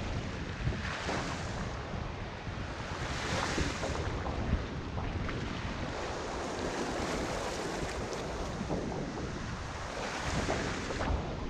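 Small river waves washing and splashing against the rocks at the water's edge, swelling every few seconds, with wind rumbling on the microphone.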